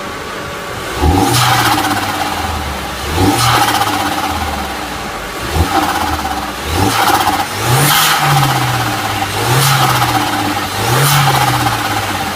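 VW Passat 1.8 turbo four-cylinder engine revved in about seven quick blips, each pitch rise falling away as the throttle closes, with a rushing turbo flutter at each lift-off.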